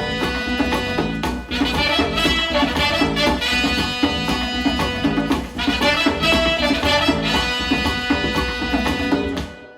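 Music played back through Elac Adante bookshelf loudspeakers and picked up by microphones about two feet away, with drums and layered instruments; it fades out near the end.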